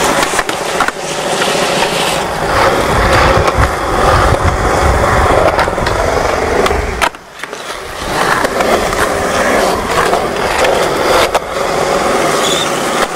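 Skateboard wheels rolling on concrete, with the trucks grinding along a concrete ledge. A few sharp knocks stand out, and the rolling drops away briefly about seven seconds in.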